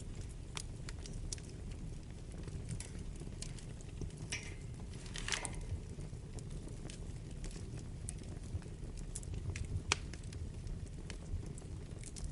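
Wood fire burning in a fireplace: a steady low rumble with scattered sharp crackles and pops, and a brief hiss about five seconds in.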